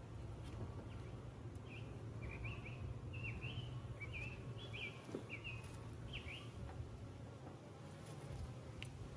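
Honeybees buzzing steadily around an open hive, a colony stirred up by the inspection. A bird's short run of high chirps sounds over it between about two and six seconds in.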